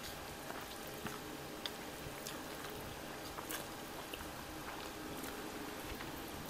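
Close-up eating sounds of instant noodles: slurping and chewing with short wet mouth clicks scattered through. An electric fan hums steadily underneath.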